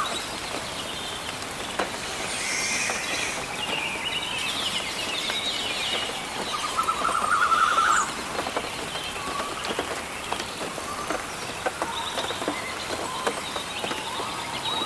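Steady rain falling in a forest, with scattered drops pattering, and birds chirping. A rapid trill lasting about a second and a half rises above it about seven seconds in.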